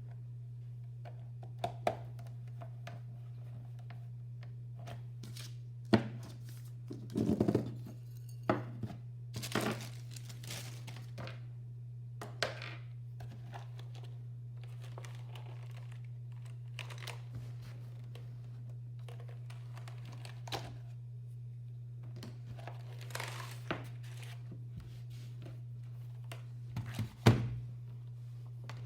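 Scattered clicks, knocks and short rustles of hands handling keyboard parts, over a steady low hum.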